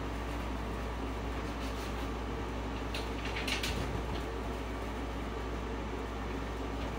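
Steady low background hum, with a few light clicks and rustles about three to four seconds in.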